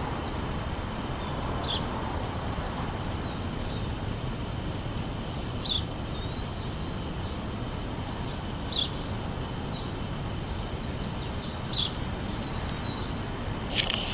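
Songbirds chirping: many short, high-pitched chirps and quick down-slurred notes, busiest in the second half, over a steady background hum of noise.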